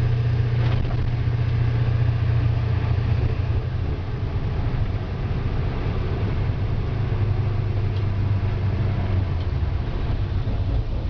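International 4700 medium-duty truck's diesel engine running under way, heard from inside the cab with road noise. The engine note drops a little about four seconds in.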